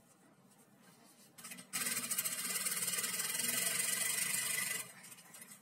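Pfaff industrial sewing machine running, stitching a seam in knit fabric with a fast, even ticking whirr. It starts a little under two seconds in and stops about a second before the end.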